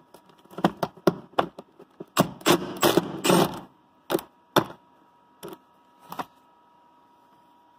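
Socket wrench working on a nut welded onto a stripped steel bolt: a quick run of metal clicks and knocks, densest in the first half, then a few single clicks.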